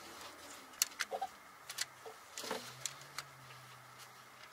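Irregular metallic clicks and knocks of a wrench worked against the timing-chain parts of a Toyota 5.7 L V8, as the chain is slackened to move it back one tooth after it jumped. A couple of brief cooing sounds and a faint low hum lie underneath.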